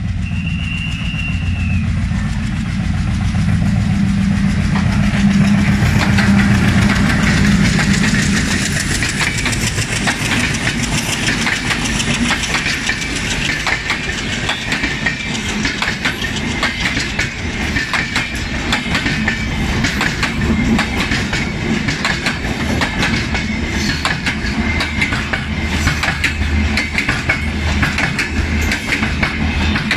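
Diesel locomotive rumbling as it comes past, loudest a few seconds in, followed by a long passenger train's coaches rolling by with a rapid, continuous clickety-clack of wheels over the rail joints.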